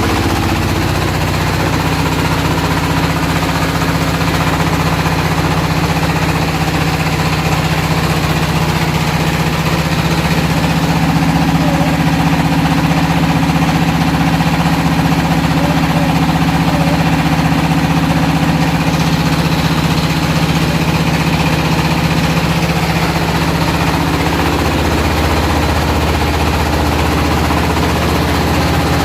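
Floating fish-feed pellet extruder running steadily, its motor and screw giving a continuous mechanical hum.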